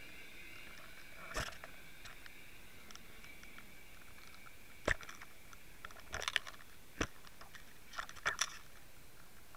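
Irregular sharp clicks and knocks heard underwater through a camera rigged with a bucktail jig as the rig bumps over a mussel bed and a summer flounder strikes it, with the clicks coming closest together about six and eight seconds in.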